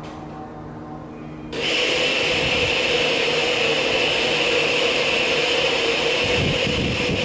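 A motor-driven appliance running steadily, a loud whirr with a hiss. It switches on suddenly about a second and a half in and cuts off near the end.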